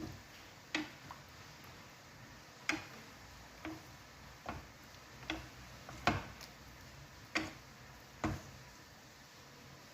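A series of about nine light clicks and knocks, unevenly spaced roughly a second apart.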